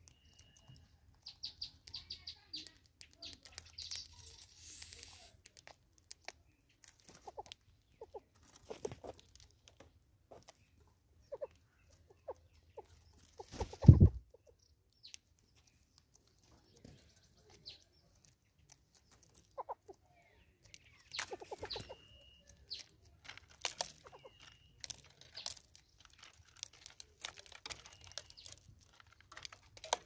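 Southern yellow-billed hornbills and Smith's bush squirrels feeding at a seed jar on a wooden stump: scattered pecking, clicking and tapping, with short high bird chirps and whistled notes now and then. One loud low thump comes about halfway through.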